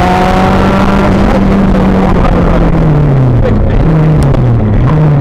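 Rally car engine heard from inside the car, pulling hard at a steady pitch, then dropping about three seconds in as the driver eases off, and rising and falling again near the end. Road and tyre noise runs underneath, with a few small knocks.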